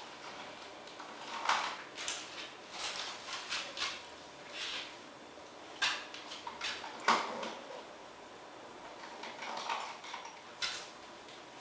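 A beagle rummaging on a wooden dining table: irregular knocks, clinks and rustles as it moves about and noses at the things on the tabletop, with a sharp knock about six seconds in and another about a second later.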